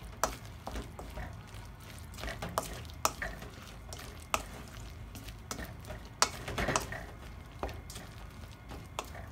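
Utensil stirring a thick, wet okra, egg and cornstarch batter in a stainless steel mixing bowl, with irregular sharp clicks where it knocks the metal bowl. The batter is being mixed until the cornstarch dissolves and everything is blended.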